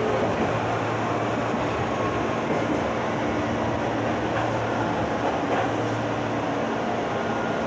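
Meitetsu 6000 series resistance-controlled electric train running steadily, heard from inside the car: an even rumble of wheels on rail with a steady low hum.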